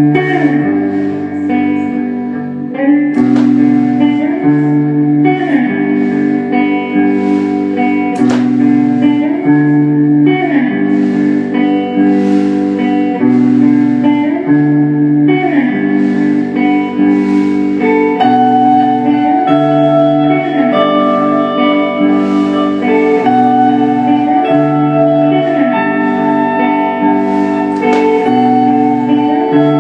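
Electric guitar, a Telecaster, playing a slow, pretty ambient phrase through delay, the phrase repeating about every two seconds as a loop with sliding notes and layered echoes.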